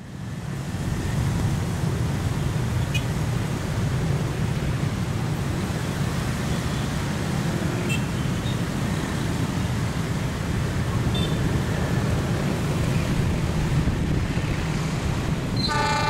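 A steady low rumble, then near the end an approaching diesel locomotive sounds its horn, a chord of several held tones.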